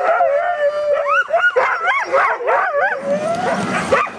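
Harnessed sled huskies howling and yipping in wavering, rising and falling cries, the excited noise of a team eager to run. About three seconds in, a steady rushing noise comes in as the team sets off over the snow.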